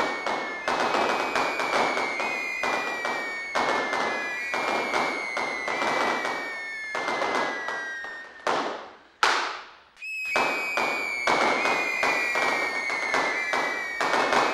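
Fireworks going off in a dense, rapid barrage of sharp bangs and crackles, with faint falling whistles over them. About two thirds of the way in the bangs stop for two falling whooshes and a brief lull, then the barrage starts again.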